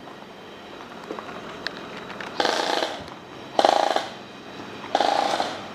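Airsoft gun fired in three short bursts, each about half a second long, with a second or so between them.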